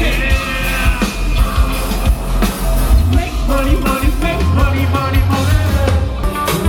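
Loud rock music with a singer over a heavy bass and a steady beat, from a band playing at a street event.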